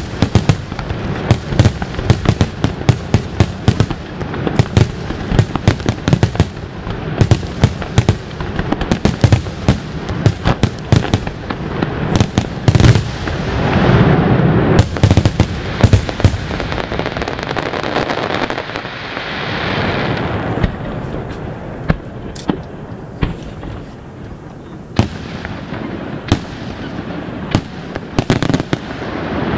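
Aerial fireworks display: rapid volleys of shell bursts, many bangs a second. Around the middle comes several seconds of continuous rushing noise, then fewer, spaced reports, picking up again near the end.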